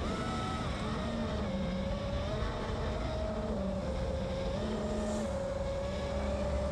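FPV quadcopter's electric motors and propellers whining steadily in flight, the pitch wavering up and down with throttle.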